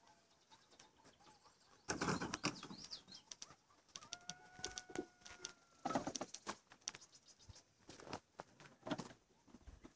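A distant coyote howl: one long, nearly level note about four seconds in, with a shorter one at the very start. Bursts of rustling noise on the phone microphone come around two, six and nine seconds in and are louder than the howl.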